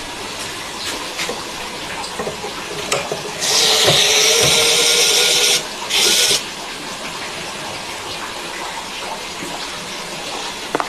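A steady rush of running water or spray, broken by a loud hiss lasting about two seconds and then a second, brief hiss a moment later.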